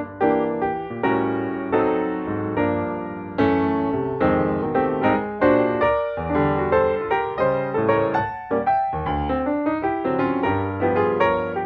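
Background piano music, a lively run of struck notes.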